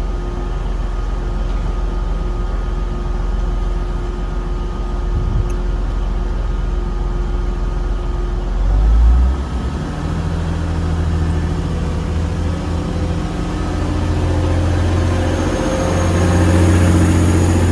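A train's diesel engine running at low idle, then about nine seconds in it surges briefly and settles into a higher, louder steady engine note as power is taken.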